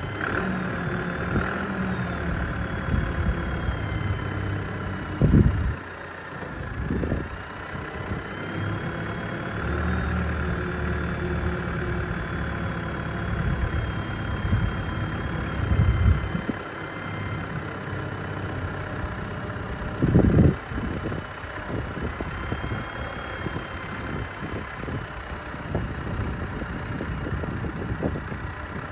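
Stocka 3060 diesel forklift's engine running, its revs rising and falling as it is driven about, with a high whine that rises and falls along with it. Gusts of wind hit the microphone three times.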